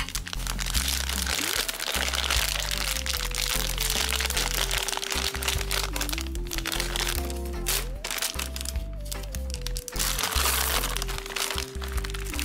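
Crinkling and crackling of a plastic M&M's candy bag being squeezed and handled in the hands, over background music with a simple stepping melody and steady bass.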